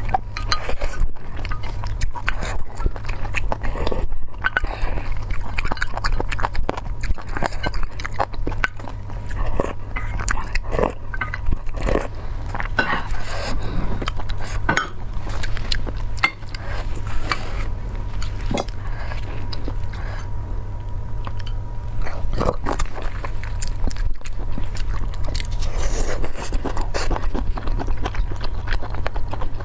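Close-miked eating: a person chewing and biting food, with many irregular crunches and wet clicks, over a steady low hum.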